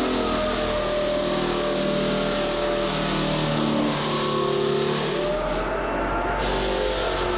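Electric floor sander running steadily, its motor and sanding noise continuous, with background music playing over it.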